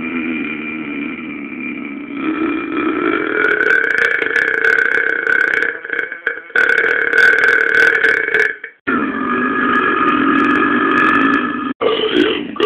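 A person's long, loud belches, one after another, each held for a few seconds, with short breaks about six, nine and twelve seconds in.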